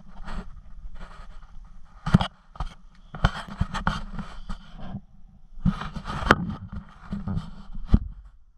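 Hand-held camera being handled and moved about: irregular scraping and rubbing with sharp knocks, over a low rumble.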